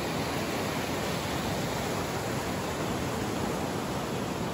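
Rushing whitewater of a river rapid: a steady, dense hiss of churning water close to the microphone.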